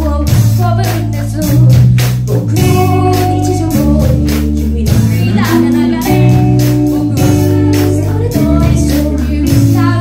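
Live rock band playing: a girl's lead vocal over electric guitar and drum kit, with a steady beat and a sustained low bass line that changes note every second or so.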